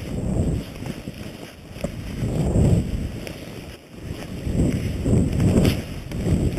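Wind rushing over the microphone of a body-worn camera while skiing downhill through deep snow, with skis sliding through the snow. The rumble swells and eases in waves about every two seconds.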